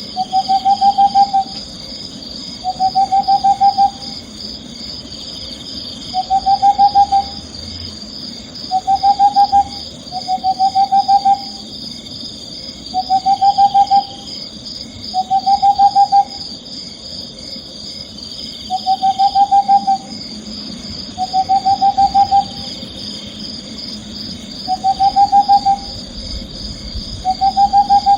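An owl calling over and over: short trilled hoots of steady pitch, each about a second long, about a dozen of them one to three seconds apart.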